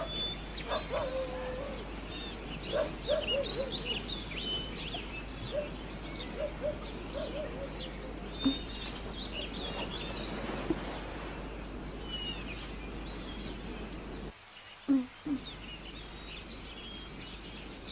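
Small birds chirping and twittering, many short calls scattered throughout over a steady background hiss, with a few lower calls in the first few seconds; the background briefly drops away near the end.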